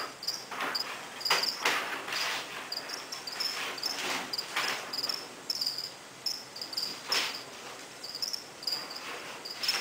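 Crickets chirping, short high chirps repeated a few times a second, with a few brief knocks or rustles about a second, four seconds and seven seconds in.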